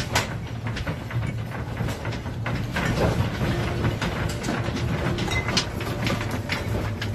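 Low steady rumble with continual irregular rattling and knocking of a room's fittings as the building shakes in an earthquake.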